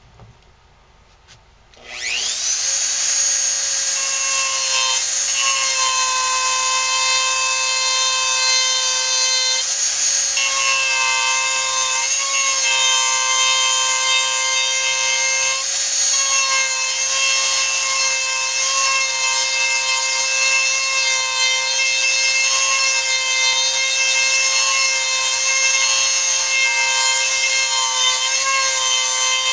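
Handheld Dremel rotary tool switched on about two seconds in, then running at a steady high whine while its small burr grinds into wood, the pitch wavering slightly at times.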